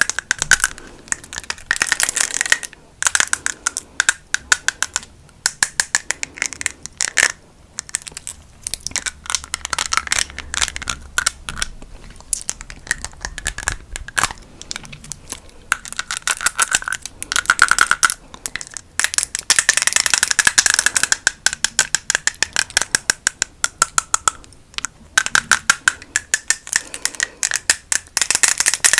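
Rapid, light tapping and clicking of small hard items worn on the fingertips, tapped together close to the microphone, in fast irregular flurries with short pauses.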